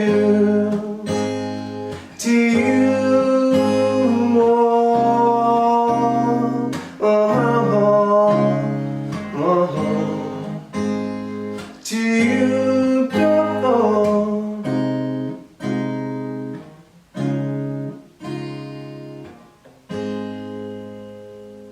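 Acoustic guitar strumming chords, with a wordless sung run gliding over them in the first part. Toward the end the guitar plays single strummed chords that ring out and fade, closing the song.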